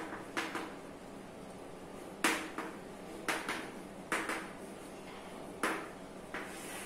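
Chalk tapping and scratching on a chalkboard as words are written, about ten short, irregular strokes.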